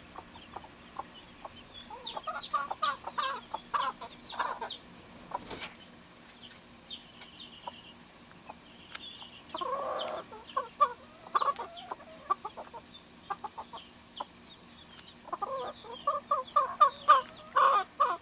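Broody hen clucking to her day-old chicks in short repeated calls, coming in quick runs that are loudest near the end, with the chicks' faint high peeps over them.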